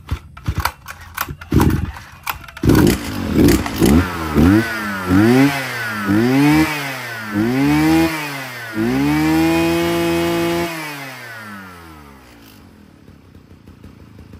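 Mitsubishi TL43 43cc two-stroke brush cutter engine just after starting, firing unevenly with sharp pops for the first few seconds. It is then revved in about five quick throttle blips, held high for a couple of seconds, and its pitch falls away near the end.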